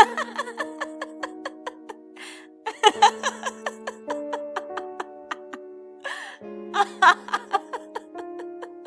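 Background music: a quick run of short plucked or struck notes over held chords.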